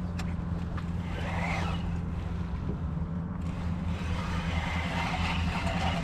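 Boat outboard motor idling with a steady, unchanging low hum.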